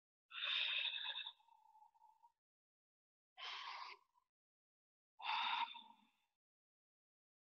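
Three audible breaths by a person, each about a second long, spaced a couple of seconds apart.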